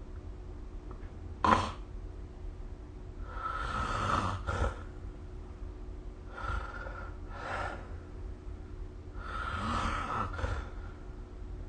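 A sleeping person snoring. There is a short, loud snort about a second and a half in, then three long, noisy breaths roughly three seconds apart, each in two parts.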